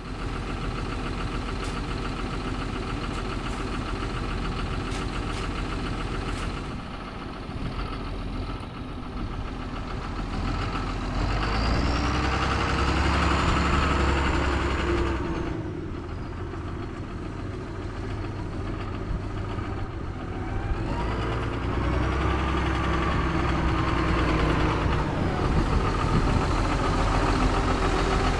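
Tractor engine running steadily, its revs rising and falling twice: louder for a few seconds about a third of the way in, easing back, then picking up again past the middle.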